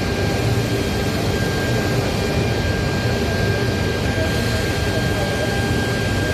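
Steady mechanical drone of machinery running, with a low hum and a thin, constant high-pitched whine over general hall noise.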